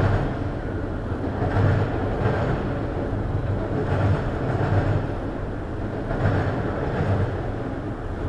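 Freight train of autorack cars rolling past at moderate speed: a steady rumble of steel wheels on rail, broken by a pair of low clunks about every two seconds as the trucks at each car end cross a joint in the track.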